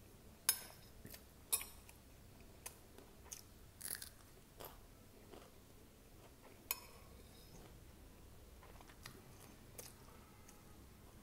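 Close-up chewing of poha with crunchy sev and peanuts: a scatter of sharp crunches and wet mouth clicks, thicker in the first seven seconds, then only a few small clicks.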